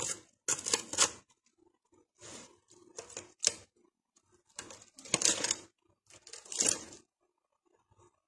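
Aluminium foil crinkling and a utensil scraping as glazed meat is turned in a foil-lined oven tray. It comes in short, irregular crackly bursts and stops about seven seconds in.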